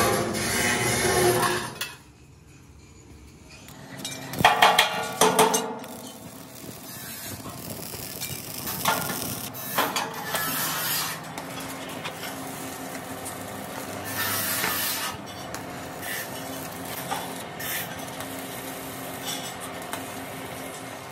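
Stick (arc) welding on steel sheet: a steady crackling hiss from the electrode arc. A short run of sharp metal knocks comes about four to five seconds in.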